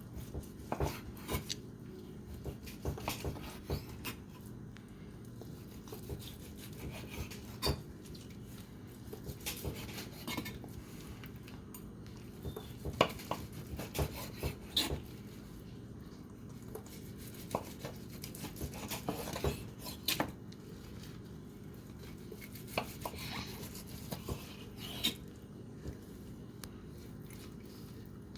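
Knife slicing a cooked ribeye on a cutting board: irregular clicks and knocks of the blade and utensils on the board, over a steady low hum.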